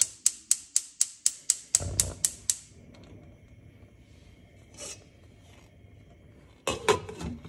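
Gas stove's electric spark igniter clicking rapidly, about four clicks a second for some two and a half seconds, until the burner catches with a soft whoosh. The lit burner then runs with a faint steady hum. Near the end there is a brief clatter as a glass pot lid is handled.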